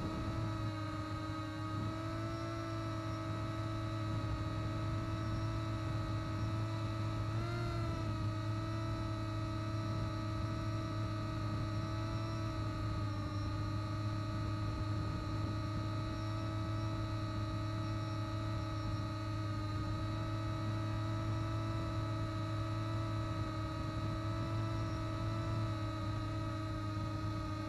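EHang Ghost quadcopter's motors and propellers humming steadily as it hovers and descends, heard through its own onboard camera. The pitch wavers briefly about two and seven seconds in as the motor speeds shift.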